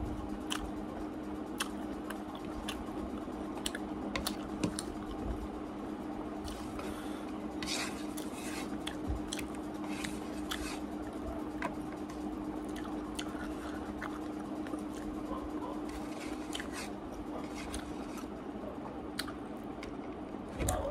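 A person eating with her fingers from a plate: chewing and mouth sounds, with scattered small clicks and taps of hand and food against the plate. A steady low hum runs underneath.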